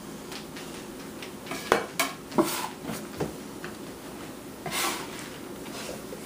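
Metal bench scraper knocking and scraping on a floured board while gathering gnocchi dough: a few sharp clacks about two seconds in, then a short scrape about five seconds in.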